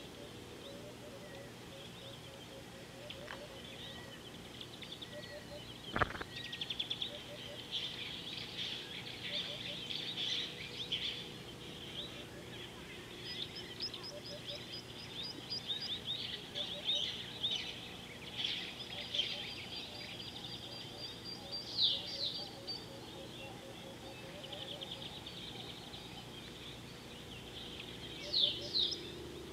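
Several wild birds chirping and trilling, with short rattling runs and a couple of quick falling whistles, over a faint steady low hum; a single click sounds about six seconds in.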